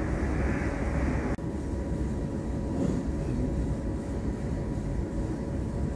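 Steady rumble of an aircraft cabin with a faint steady hum. About one and a half seconds in it cuts abruptly to a slightly duller rumble.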